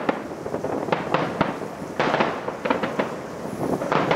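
Aerial fireworks shells bursting in quick succession: a string of sharp bangs and crackles over a continuous rumble, the strongest bang about two seconds in.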